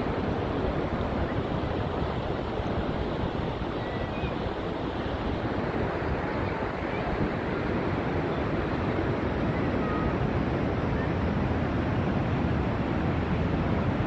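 Ocean surf breaking on the beach, a steady rushing wash, with wind buffeting the microphone.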